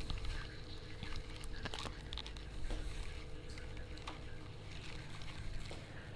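Close handling noise: rustling and scattered small clicks as headphones and a microphone cable are moved about next to the microphone, over a steady low hum.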